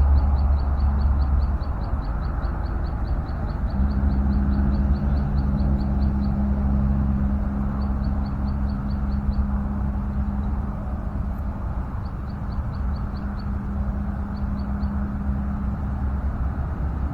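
An engine running steadily with a low hum. Runs of rapid, high-pitched ticking come and go over it.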